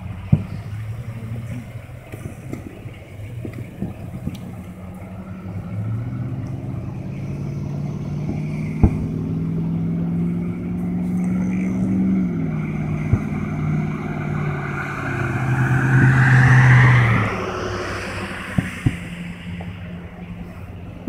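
A motor vehicle's engine running close by, its hum dropping in pitch about halfway through, then swelling and passing with a rising whoosh about two-thirds in before fading. A few sharp single bangs of distant fireworks go off over it.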